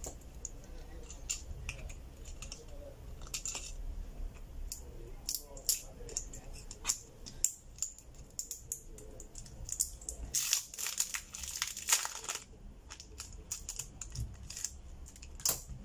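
Small clicks and ticks of a precision screwdriver and fingers working on an opened smartphone's frame, with a short crinkling rustle about ten seconds in, over a faint steady low hum.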